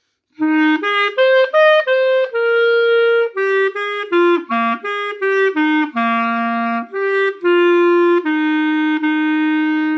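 Solo clarinet playing a short melodic phrase: a run of separate notes that climbs, a little louder at its top, then steps back down and ends on a long held note.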